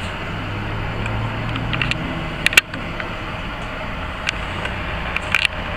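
Hot-rod saloon car's engine running with a steady low rumble as it moves off along the street, swelling slightly a second or so in. A few sharp clicks come through about halfway and near the end.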